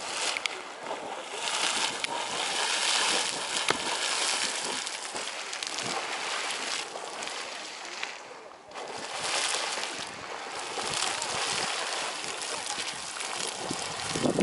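Geyser erupting: hot water splashing and hissing in uneven surges, easing briefly about nine seconds in before building again.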